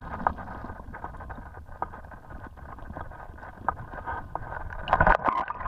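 Muffled rush of stream water heard by a camera held underwater, with scattered clicks and knocks and a louder cluster of knocks and sloshing about five seconds in.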